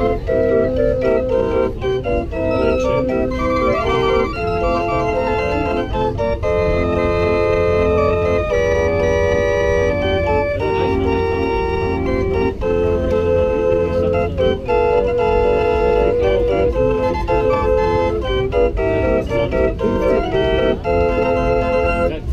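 A 43-note Hofbauer concert barrel organ with small percussion playing a medley of tunes: a continuous run of organ-pipe melody and chords.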